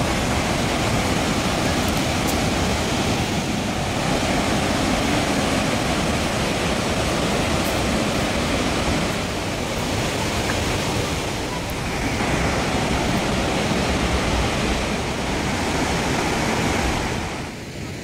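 Reichenbach Falls: a steady, dense rush of heavy falling water and spray close by. The rush drops away sharply near the end.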